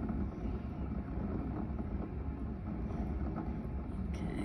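Potter's wheel running at a steady speed, giving a low, even rumble.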